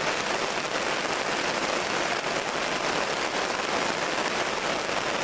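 Steady rain falling and pattering.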